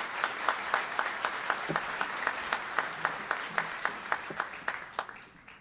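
Audience applauding, with individual sharp claps standing out from the general clapping. It dies down in the last second, then cuts off abruptly.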